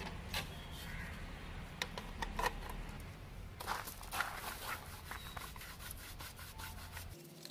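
Bristle brush scrubbing dust and grime off the plastic front panel of a Technics RS-TR373 cassette deck, in quick, irregular rubbing strokes.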